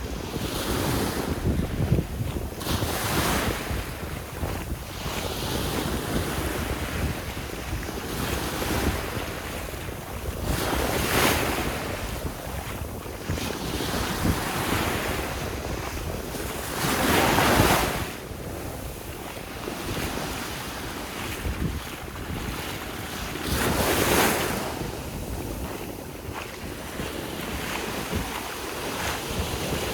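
Sea waves breaking and washing up the shore, a loud surge every six or seven seconds over a steady wash of surf. Wind buffets the microphone with a low rumble.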